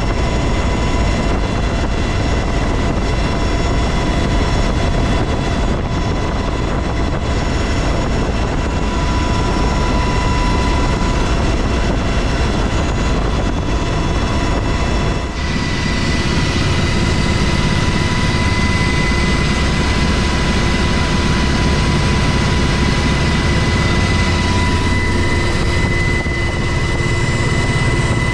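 UH-60 Black Hawk helicopter heard from inside its cabin: loud, steady rotor and engine noise with a constant high whine. About halfway through the sound dips briefly and comes back with a heavier low rumble.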